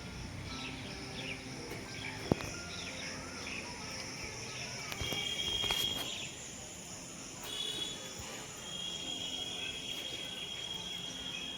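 Outdoor ambience of birds chirping in short calls for the first few seconds, then a steady high insect trill that stops briefly and comes back. There is one sharp click a little over two seconds in.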